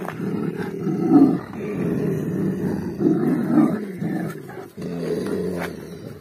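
Dogs growling, low and rough, in several long stretches with short breaks.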